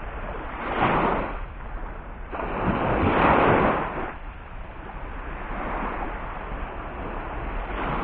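Wind rumbling on the microphone over small waves breaking on a sandy beach, with two louder rushes of noise, about one and three seconds in.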